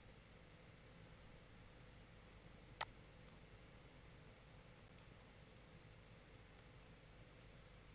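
Near silence with a single sharp click about three seconds in, from working the computer's controls.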